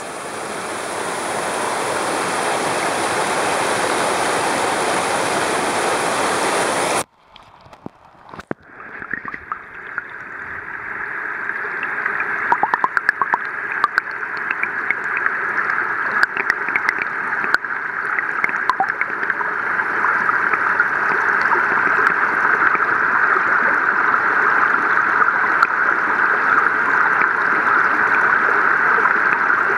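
A steady rushing water noise stops abruptly about seven seconds in. After a moment of near quiet, the Jitterbug topwater lure is heard from underwater as it churns the surface: a steady gurgling hiss with many small ticks, building up over the next ten seconds.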